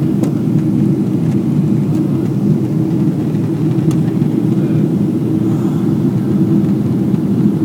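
Steady low drone inside the cabin of a Boeing 777-300ER during the climb after takeoff: its twin GE90-115B engines and the rush of air past the fuselage.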